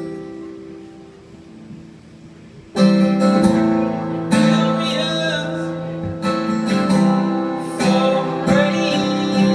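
Live acoustic band of violin and two strummed acoustic guitars: a held chord fades quietly, then about three seconds in the full band comes back in loudly with guitar strumming and bowed violin.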